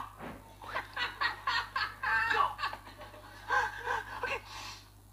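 A man laughing, in two bouts of quick repeated pulses: one about a second in and another near four seconds.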